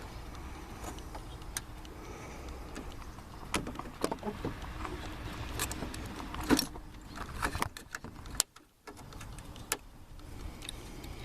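Scattered light clicks and metallic rattles of hands fitting a door handle's linkage rods inside a truck door, the sound dropping out briefly about three-quarters of the way through.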